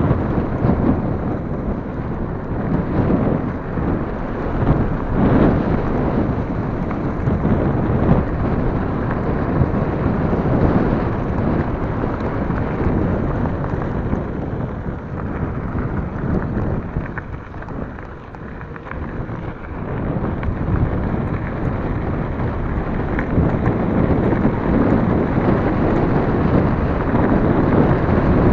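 Rushing and buffeting on the microphone mixed with knobbly tyres rumbling over a gravel track as a mountain bike rides fast, dipping briefly about two-thirds of the way through.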